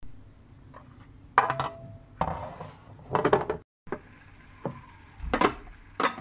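Kitchenware being handled: about five sharp knocks and clatters, one leaving a short ringing tone. There is a brief moment of dead silence a little after the middle.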